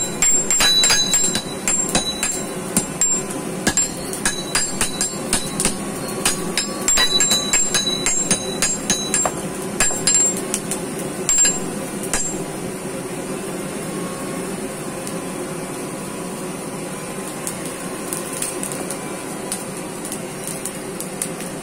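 Hand hammer and striker's hammer beating red-hot iron on an anvil: rapid, irregular metal-on-metal blows with a bright ring. The blows stop about twelve seconds in, leaving a steady rushing noise.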